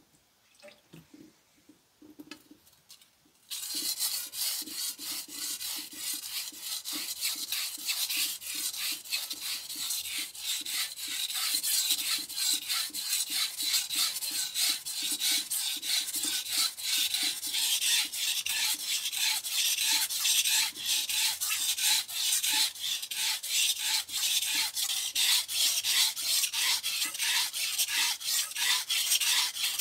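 Chef knife blade being stroked back and forth on a whetstone during the sharpening stage: a continuous, rapid gritty scraping of steel on stone, many strokes a second. It starts about three and a half seconds in, after a few faint small knocks.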